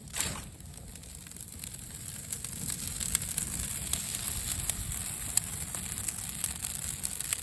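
Wood bonfire burning, crackling with scattered sharp pops, and a brief rush of noise just after the start.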